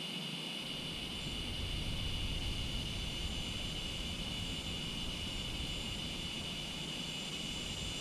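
Cicadas singing in a loud, continuous drone. About a second in, a passing jet adds a low rumble underneath.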